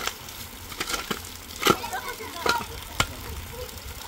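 Steady rain falling, with a metal shovel scraping and striking wet, stony soil about six times while a drainage channel is dug; the loudest strike comes a little under two seconds in.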